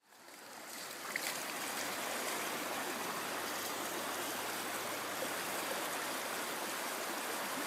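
Shallow creek running over a rocky bed, a steady babble of water that fades in over the first second.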